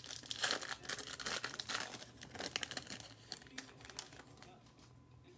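Crinkling and rustling of a trading-card pack's wrapper and cards being handled, in irregular bursts that die down near the end.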